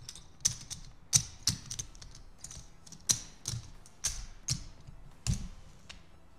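Poker chips clacking together as hands gather them off a felt craps layout and restack them: a dozen or so sharp, irregular clicks.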